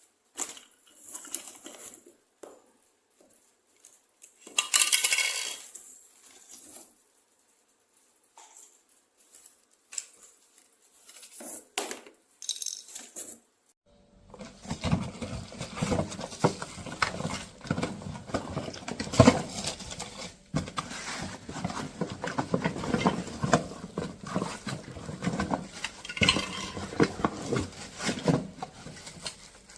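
Scattered plastic clicks and handling knocks from a Xiaomi Mijia cordless stick vacuum, then about halfway through its motor starts and runs steadily, with many small rattling clicks over the running noise.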